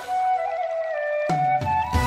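Vietnamese bamboo flute (sáo trúc) playing a long held note on its own for about a second, then the backing accompaniment comes back in under it and the flute moves up to a higher note.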